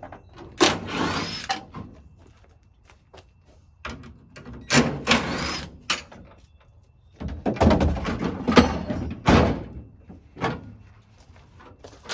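A Mazda MX-5's boot lid being unbolted and lifted off: a series of short metallic rattles, scrapes and knocks, busiest and loudest in the last few seconds.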